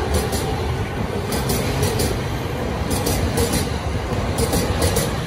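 Chuo-Sobu Line commuter electric train running along the platform close by: a loud, steady rumble of steel wheels on rail, broken by repeated clicks as the wheels cross rail joints.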